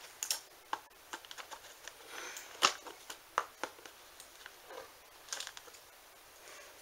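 Plastic toy packaging being worked open by hand: scattered crinkles and sharp clicks, the loudest a little over two and a half seconds in.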